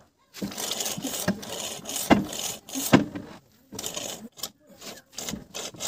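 Scraping and rubbing in uneven stretches, with two sharp knocks about two and three seconds in.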